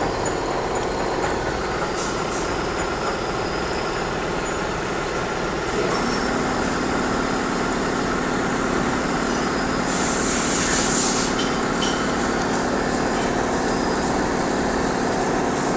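A machine running steadily with a constant hum; its tone shifts to a new steady pitch about six seconds in, and a short hiss sounds about ten seconds in.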